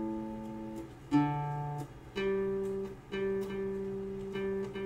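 Caramel guitalele strings plucked one at a time and left to ring: a lower note about a second in, then the same higher note plucked three times. The brand-new strings have gone out of tune, and this is them being checked and tuned.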